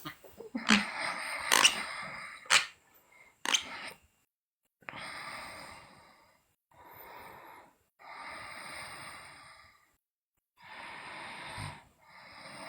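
A sleeping person snoring, with four or five long, noisy breaths in a row. Several sharp clicks come in the first few seconds, before the snoring starts.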